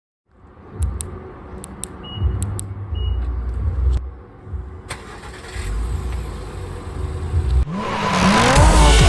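Car engine starting and running, with a few sharp clicks and two short high beeps in the first few seconds. Electronic music with wobbling bass comes in near the end.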